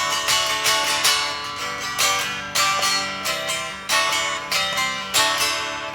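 Guitar playing: a steady rhythm of picked notes and strummed chords, each attack ringing and fading before the next.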